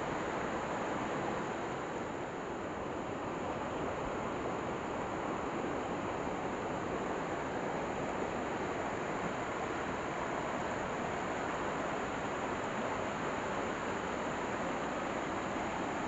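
A rushing mountain stream tumbling over rocks: a steady, even sound of white water.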